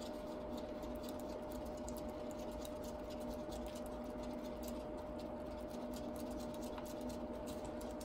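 Wooden craft stick stirring resin in a paper cup, making a run of light, irregular clicks and scrapes against the cup over a steady hum.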